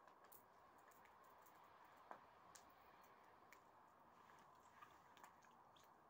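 Near silence: faint outdoor background hiss with scattered faint, irregular ticks and clicks.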